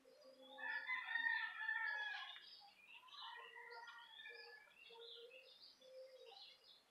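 A rooster crowing once, a call of about two seconds starting just after the beginning, with small birds chirping on and off around it.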